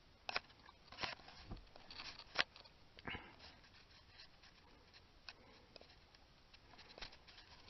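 A few faint, scattered clicks and knocks, the sharpest about two and a half seconds in, over quiet room tone.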